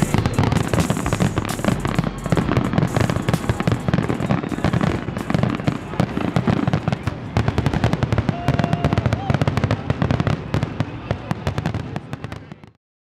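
Fireworks display: dense, rapid crackling and popping with heavier bangs, which cuts off suddenly near the end.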